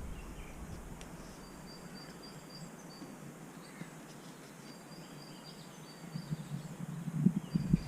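Quiet outdoor background with a faint, high chirp repeated a few times a second throughout, from a bird or insect. Low rustling and bumping comes in near the end.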